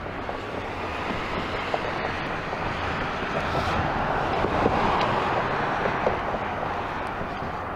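Road traffic passing close by: the tyre and engine noise of a passing vehicle swells to a peak about five seconds in and then fades.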